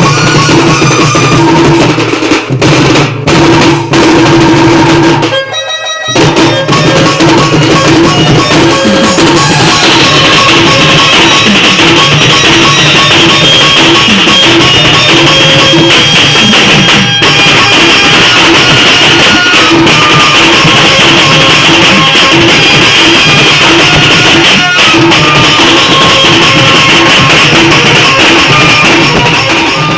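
Loud band music: a sustained melody line over a dense drum beat, with a short break about five and a half seconds in before the band picks up again.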